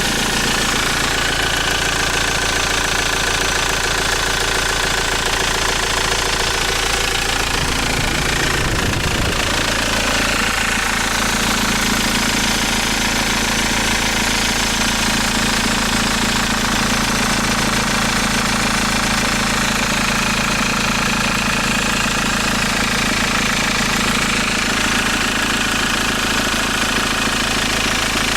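An engine idling steadily with a knock under its running.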